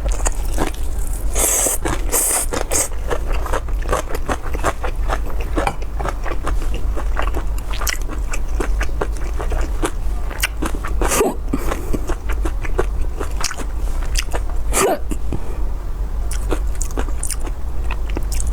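Close-miked mouth sounds of a person eating spicy pork: irregular biting and chewing with many sharp wet clicks and crunches, over a steady low hum.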